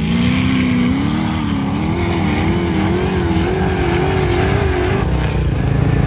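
Off-road vehicle engine revving hard as it climbs a steep sand dune. Its note rises slowly and wavers up and down with the throttle, then drops away about five seconds in, over a steady low rumble.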